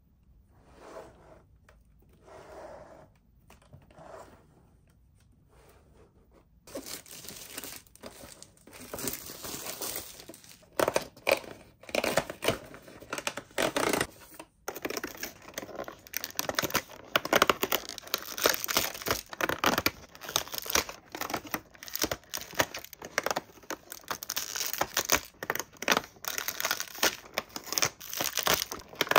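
Toy packaging being unwrapped by hand: soft rustling at first, then from about a third of the way in a dense run of tearing and crinkling with many sharp crackles.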